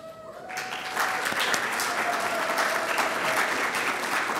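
An audience applauding, the clapping starting about half a second in, filling out within a second and holding steady.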